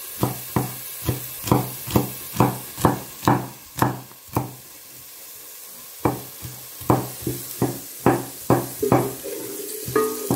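Chef's knife mincing garlic cloves on a wooden cutting board: quick, even chops about two a second. The chopping stops for about two seconds midway, then starts again.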